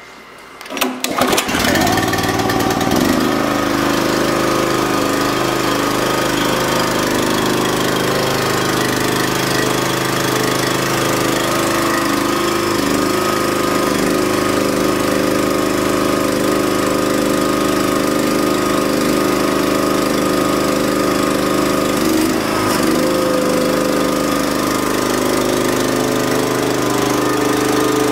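Honda 13 HP single-cylinder engine on a log splitter being pull-started, catching after a second or so and then running steadily. Its cracked cast-iron exhaust manifold has just been repaired by brazing with brass.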